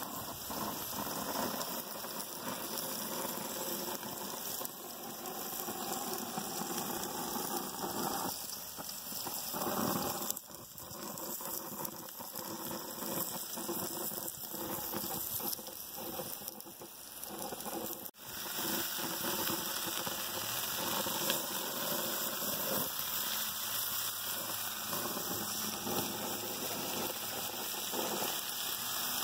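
Steak tips and chicken breasts sizzling on a gas grill, a steady crackling hiss that breaks off for a moment about eighteen seconds in.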